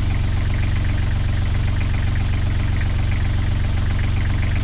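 Beta Marine 28 hp three-cylinder marine diesel idling steadily with an even, rapid low beat, warmed up to running temperature.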